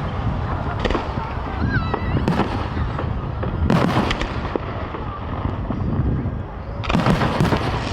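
Aerial fireworks bursting overhead: sharp bangs every second or two, with a quicker cluster of bursts near the end.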